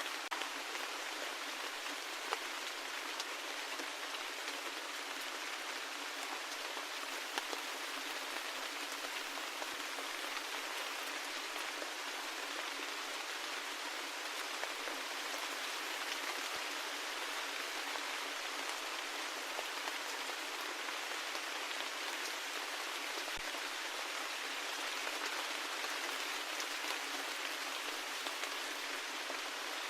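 Steady rain falling, an even hiss with scattered individual drops ticking, a few of them sharper.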